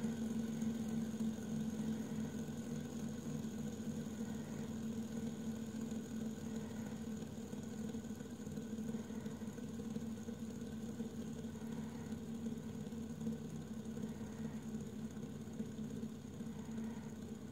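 Red three-arm fidget spinner spinning flat on a wooden tabletop, its ball bearing giving a steady low hum with a faint high whine, easing slightly in loudness as it spins down.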